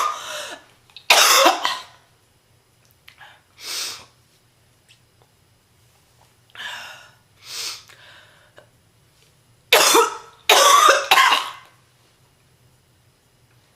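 A woman's deep, chesty smoker's cough, brought on by illness, coming in fits. There is a loud cough about a second in, quieter coughs through the middle, and two loud coughs close together near ten seconds.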